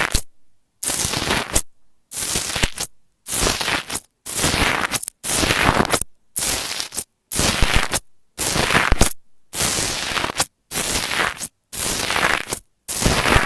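Crunchy slime being pressed and squeezed, crackling and popping in about a dozen short bursts, each cut off sharply by a moment of silence before the next.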